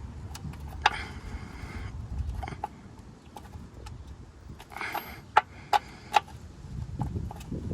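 Metal hand tools clinking and scraping at the oil drain plug, with sharp clinks about a second in and three more in quick succession between five and six seconds in.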